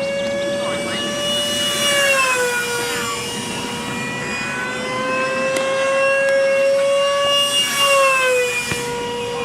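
Electric radio-controlled model plane's motor whining steadily in flight. Its pitch drops twice as it flies past, about two seconds in and again near the end.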